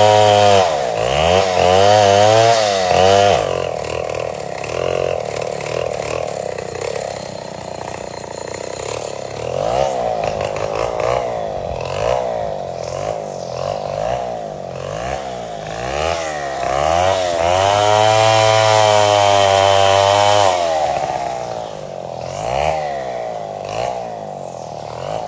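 Chainsaw engine revving up and down repeatedly, held at high revs for a few seconds at the start and again about two-thirds of the way through.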